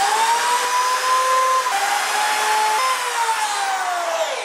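Electric drill boring a pilot hole into a wooden cabinet face frame, its motor whining steadily at speed. The pitch drops for about a second in the middle, then the motor winds down and stops near the end.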